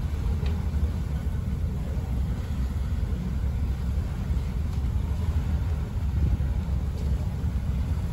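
Star Ferry under way across the harbour: a steady low rumble.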